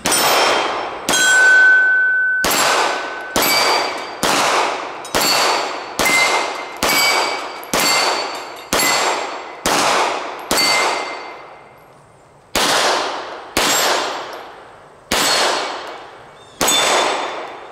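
Gen 5 Glock 19 9mm pistol fired at steel plates in a slow, deliberate string of about sixteen shots roughly a second apart, with one longer pause about two-thirds of the way through. Each shot is followed by the ringing clang of struck steel, fading until the next shot.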